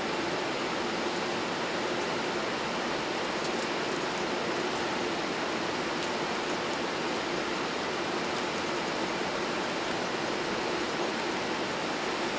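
Steady rushing cabin noise inside a Boeing 787-8 airliner, with a low steady hum under it. A few faint ticks come about three to five seconds in.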